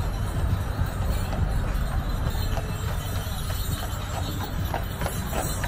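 A horse's hooves clip-clopping in an irregular run of clicks from about two seconds in, over a steady low rumble.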